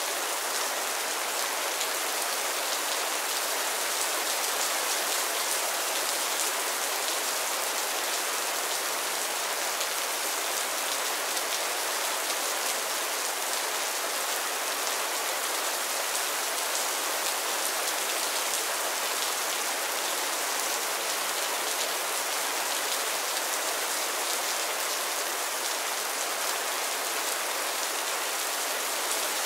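Steady rain falling: an even hiss of countless drops, with no single sound standing out.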